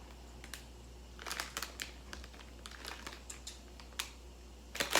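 Plastic instant-noodle packet crinkling as it is handled, in irregular short crackles.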